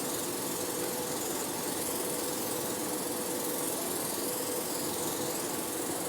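Spray mist gun of a hydration facial machine running: a steady motor hum under an even hiss of spray.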